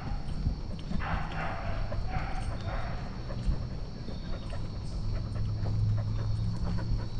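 Husky breathing hard, two breaths about a second apart, over irregular low thuds of its footfalls on the trail. A low steady hum comes in about five seconds in.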